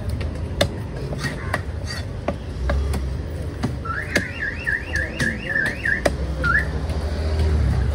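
Heavy knife chopping thick squid flesh into cubes on a wooden log block, a sharp knock about every half second. About four seconds in, a high warbling tone comes in from nearby, rising and falling about seven times in quick sweeps, with one more near the end.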